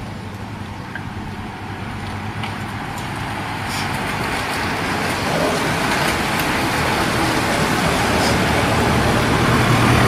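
Engine hum and tyre noise of a Mercedes-Benz van trailing a bunch of racing cyclists, growing steadily louder as it approaches.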